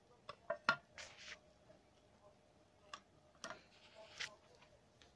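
Faint clicks and taps of plastic smartphone parts (back cover and screen) being picked up and set down, a quick cluster in the first second and another about three seconds in, with two brief rustles between.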